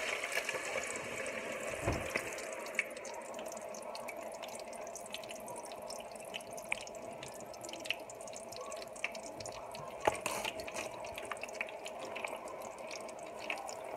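Hand-cut potato fries frying in hot oil at about 350°F: a steady sizzling hiss with scattered crackles and pops, starting abruptly as they go in. The oil bubbles up around the moisture on the fries.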